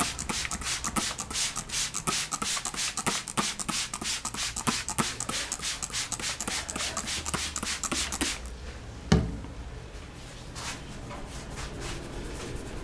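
A barber's hands slapping and tapping quickly on a customer's head in a percussive Indian head massage, about eight seconds of rapid strokes, then one heavier thump about nine seconds in.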